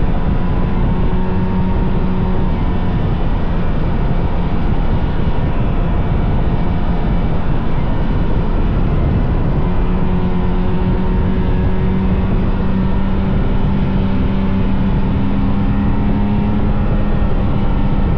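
Vintage snowmobile's two-stroke engine running steadily at trail-cruising speed, a loud, even drone with no change in pitch.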